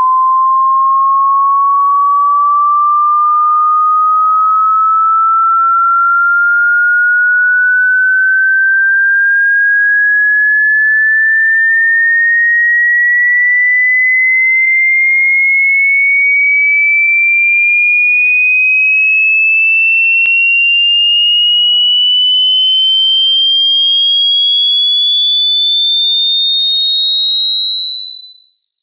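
Hearing-test sine tone: a single pure electronic tone that glides slowly and steadily upward in pitch, about two octaves, at a constant level.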